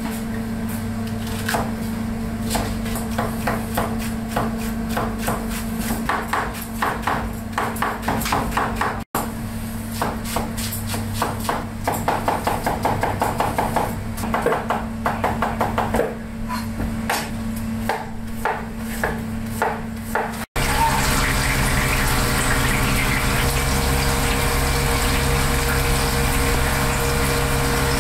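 Restaurant kitchen work: dishes and utensils clatter in quick runs of clicks and knocks over a steady ventilation hum. After a cut, about two-thirds of the way in, there is a steady rush like running water.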